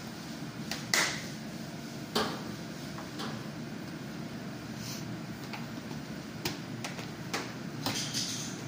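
A floor squeegee worked across wet kitchen tiles: scattered sharp clicks and knocks over a steady background hum, the louder knocks about one and two seconds in.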